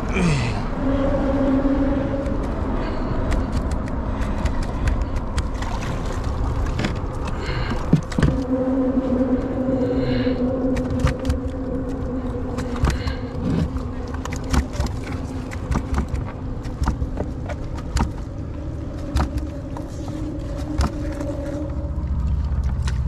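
Motorboat engine droning at a steady pitch, fading in and out over several long stretches, over a low rumble of wind and water, with scattered sharp clicks and knocks.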